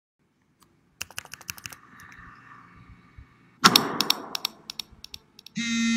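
Rapid clicking of computer keyboard keys about a second in. Just after halfway comes a sudden loud burst of noise with scattered clicks that dies away over about a second, the loudest thing here. A steady electronic buzz starts near the end.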